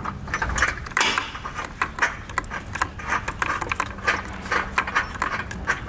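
Small, irregular metallic clicks and clinks of a bolt with its lock washer and flat washer being lined up with a nut plate and threaded into it by hand.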